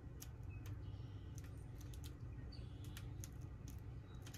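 Faint, irregular clicks and taps of thin dry reed slats being pressed into place one by one in a small wooden frame, over a low steady background hum.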